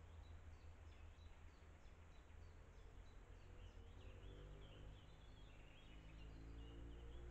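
Faint woodland ambience: a small bird repeats short high chirping calls over a low rumble. About four seconds in, a low steady drone joins and grows louder.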